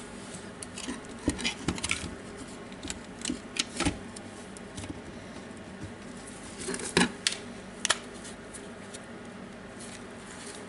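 Scattered clicks and knocks of plastic and metal parts as a DeWalt brushless hammer drill's motor and gearbox assembly is handled and fitted into its open plastic housing half. The louder knocks come a little over a second in, near four seconds and near seven seconds.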